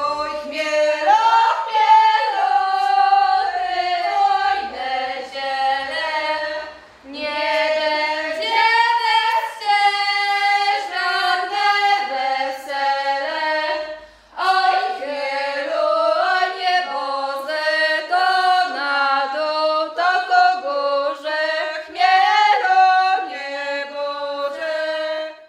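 A group of women's voices singing a song together in harmony, in phrases with short breaks about 7 and 14 seconds in.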